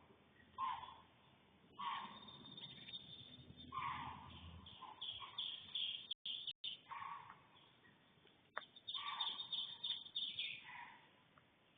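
Bobcat calling over and over: short calls, each about half a second long, coming every second or two, with a quicker run of calls near the end.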